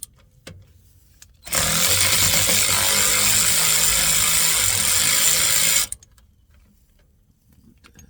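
Power tool, most likely an impact wrench, running for about four seconds to crack a fitting loose, then stopping abruptly.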